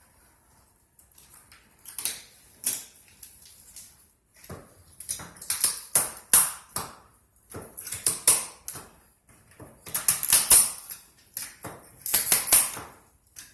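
An irregular run of sharp clicks, clacks and short scrapes from hard objects being handled, coming in quick clusters that grow busier after about five seconds.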